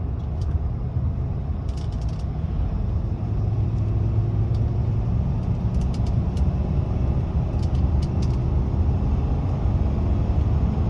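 Car engine and road noise heard from inside the cabin, the engine pulling steadily in third gear, the gear where the driver has felt a misfire.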